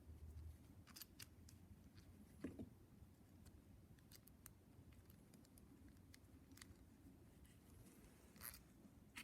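Near silence: quiet room tone with a few faint, scattered clicks and a brief light scrape near the end.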